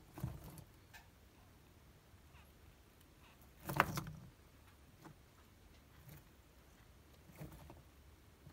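Rough-scaled plated lizard shaking and shifting a Djungarian hamster held in its jaws on bark chips: short scuffling, knocking bursts a few seconds apart, the loudest nearly four seconds in, with small clicks between.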